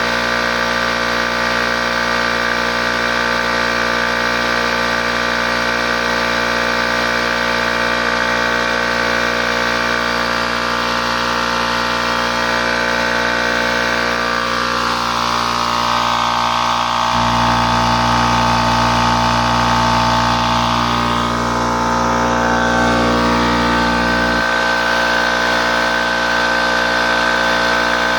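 Oil-free 5 hp, 20-gallon Charge Air air compressor running steadily as it pumps its tank up toward 140 psi. A deeper hum swells in for several seconds past the middle, then drops back.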